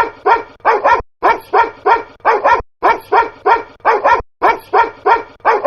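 Dog barking, chopped into a DJ loop: short barks repeat in an even, fast rhythm, in groups of three or four with brief breaks between.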